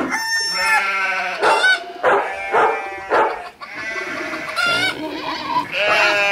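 Farm animals calling: a string of loud, overlapping calls, one after another.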